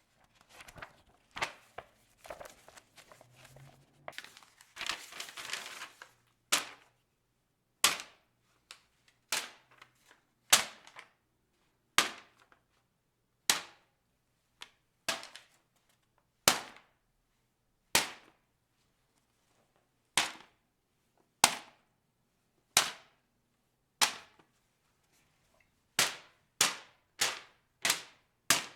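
A sheet of white printer paper rustling briefly, then giving a series of sharp, crisp snaps, about one every second and a half, coming faster near the end.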